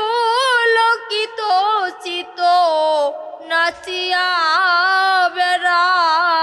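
A woman singing Bengali devotional verse solo, in a high melodic line that bends and slides in pitch, phrase after phrase with short breaks for breath.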